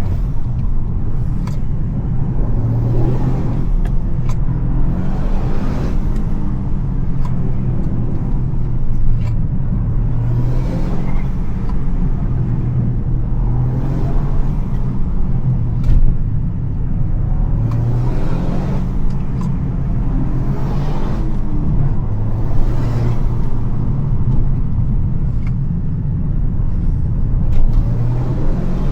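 Toyota GR Yaris three-cylinder engine running under way: a steady low drone, with a swell of noise every two or three seconds and a few short sharp knocks.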